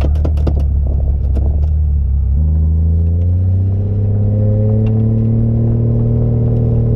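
Toyota 1JZ-GTE turbocharged straight-six in a Holden VB Commodore, heard from inside the cabin: it runs steadily at low revs with a few clicks in the first two seconds, then after a sudden change about two seconds in, it pulls away with its pitch rising slowly and evenly.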